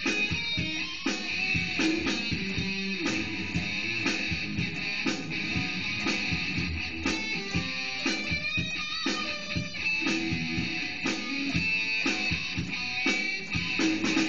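Les Paul-copy electric guitar improvising lead lines over a backing track with a drum-machine beat.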